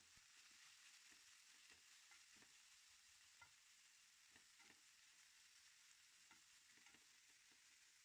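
Faint sizzle of flaked fish frying in a non-stick pan, with a wooden spatula stirring through it and scraping and tapping the pan at irregular moments.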